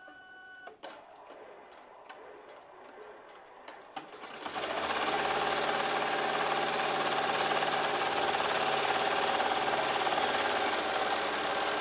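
Multi-needle embroidery machine stitching: a few soft clicks, then about four seconds in it starts sewing and runs loud, fast and steady.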